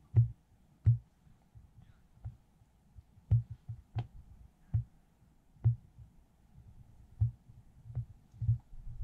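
Footsteps close to the microphone: irregular dull thuds about once a second, each with a light click.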